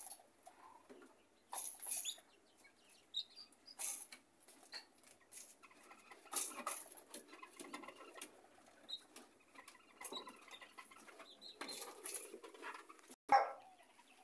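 Miniature hens scratching and rustling in the nest bedding, with an occasional soft cluck and a sharp knock near the end.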